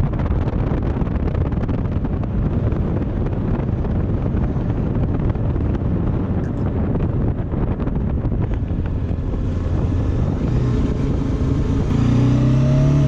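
Bajaj Dominar 400 motorcycle riding on a hill road, wind rushing over the microphone above the single-cylinder engine's drone. About twelve seconds in, a clearer pitched engine note comes up and rises slightly.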